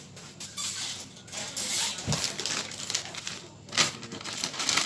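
Snack food and its packaging being handled while setting out an aperitif platter: crinkling and rustling with scattered small clicks, a dull knock about two seconds in and a sharp click near the end.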